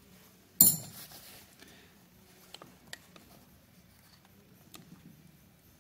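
A wrench clanks sharply against the steel parts of a lathe apron about half a second in, ringing briefly, followed by a few faint metal clicks and taps as the mechanism is worked by hand.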